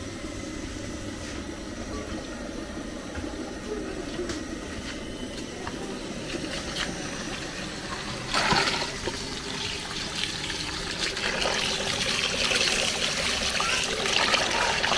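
Quiet handling sounds at first, then about halfway through an outdoor tap is turned on and water runs and splashes into a plastic bowl while fish is rinsed in it by hand.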